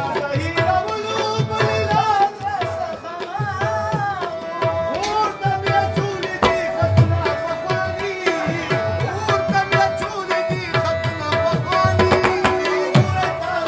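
Live Pashto folk music: tabla drumming in a steady rhythm under a harmonium holding a long steady note, with a man's wavering singing line on top.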